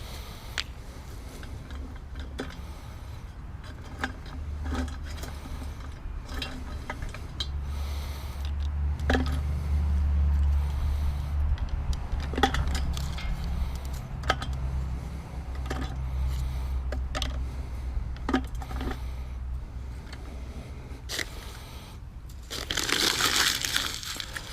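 Twigs and small sticks being snapped and dropped into a Kelly Kettle's metal fire base and chimney: scattered sharp clicks and clinks over a low rumble, with a burst of crumpling paper near the end.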